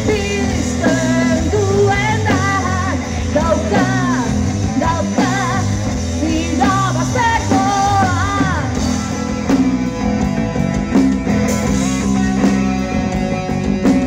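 Live rock band playing: a woman's lead vocal over distorted electric guitar and drum kit. The singing stops a little over halfway through, leaving the guitar and drums playing on.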